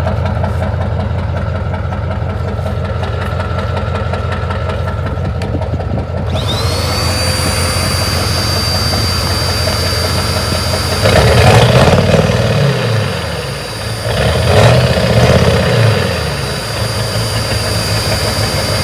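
Ford F-350's 7.3 L Power Stroke V8 diesel idling steadily. About six seconds in, a vacuum cleaner motor starts with a rising whine that settles into a steady high tone. The diesel is then revved twice, briefly, pushing exhaust soot through the vacuum.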